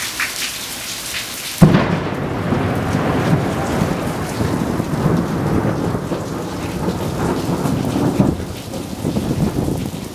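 A close thunderclap in steady rain: a sudden loud crack about a second and a half in, then a rolling rumble that lasts about six seconds before it dies back to the rain.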